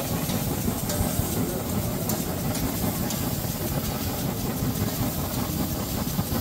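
Steady city street ambience: a continuous low engine-like rumble under an even background noise, with no distinct events.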